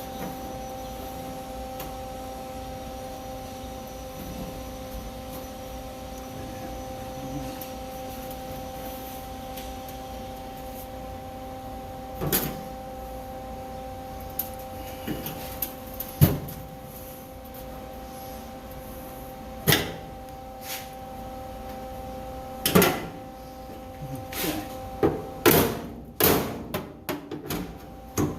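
A steady hum with occasional single sharp knocks, then a quick run of hammer blows on the truck's sheet-metal floor pan near the end as it is worked into place.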